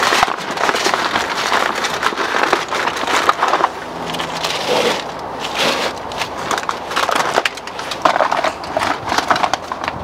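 Aluminium foil crinkling and crackling as hands crimp and press it down around the rim of a pan to seal it.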